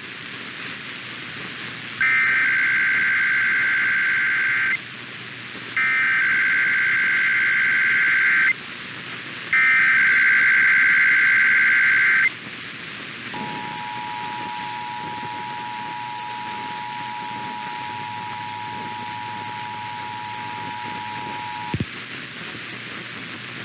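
Emergency Alert System tones for a Required Monthly Test, over steady radio hiss. First come three bursts of SAME digital header data, each about two and a half seconds long. Then the two-tone EAS attention signal (853 and 960 Hz) holds steady for about eight seconds and ends with a click.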